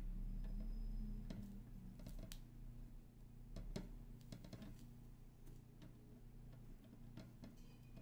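Faint, scattered light clicks and taps of small tools and parts being handled during through-hole soldering work on a keyboard circuit board, over a low electrical hum that weakens about halfway through.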